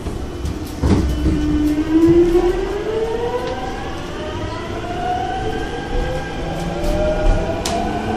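Seoul Subway Line 5 train's ABB GTO VVVF inverter and traction motors, heard inside the car, whining in several parallel tones that rise steadily in pitch as the train accelerates, over the low rumble of the wheels on the track. A thump about a second in.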